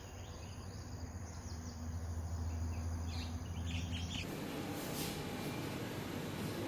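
Outdoor ambience: a few faint chirps over a low steady hum, giving way about four seconds in to a fuller, even hiss.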